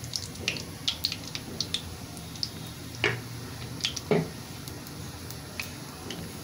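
Sparse small ticks and crackles, with two louder clicks about three and four seconds in, over a faint steady low hum: cooking oil starting to heat in a non-stick kadai on a gas stove.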